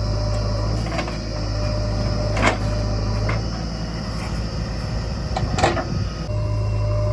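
Diesel engine of a JCB backhoe loader running steadily, its low hum changing as the machine works between about one and six seconds in. Two sharp metallic clanks, one about two and a half seconds in and one near the six-second mark, with a few lighter knocks.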